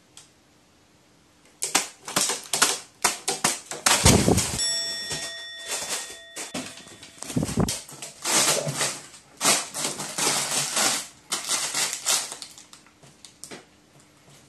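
Crow pecking at and crushing a paper balloon: a long run of rapid crinkling and sharp pecking taps on the paper and the metal tabletop, with two heavier thumps about four and seven and a half seconds in.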